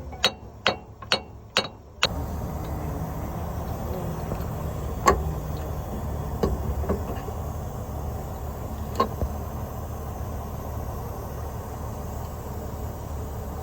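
Sharp metallic taps about twice a second, stopping abruptly about two seconds in. A steady low hum follows, with a few single clinks of tools on metal.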